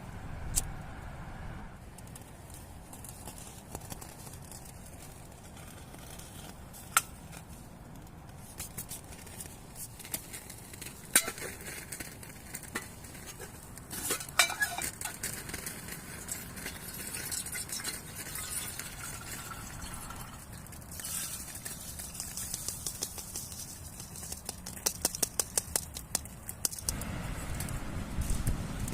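Scattered sharp clicks, knocks and clinks of hard objects being handled, one with a brief ringing about halfway through and a quick run of clicks near the end, over a steady low background noise.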